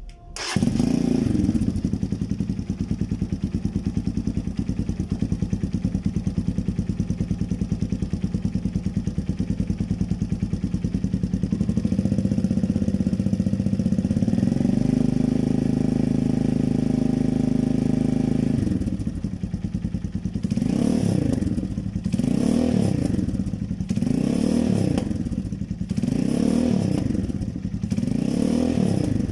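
Vento Rocketman 250 motorcycle with an aftermarket SC Project exhaust, starting just after the beginning and idling steadily. The idle rises a little around the middle, and then the throttle is blipped in a run of short revs, each rising and falling, about one every second and a half.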